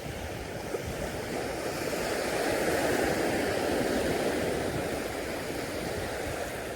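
Sea surf washing onto the beach: one wave's rush builds to its loudest in the middle and eases off.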